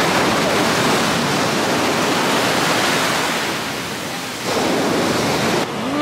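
Rough sea surf breaking and washing up a pebble beach: a loud, steady rush of churning water that dips briefly about four seconds in, then surges again.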